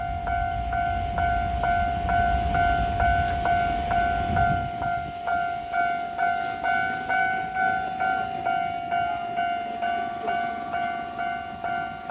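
Japanese level-crossing alarm bell ringing about twice a second, while an electric train pulls away with a low rumble that fades out about four and a half seconds in.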